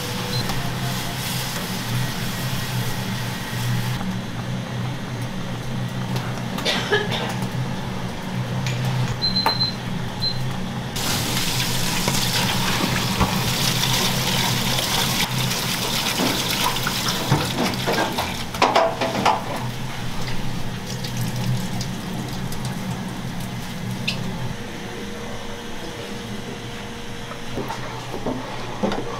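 Water running, its flow changing a few times, over a steady low hum, with a few short clinks and knocks.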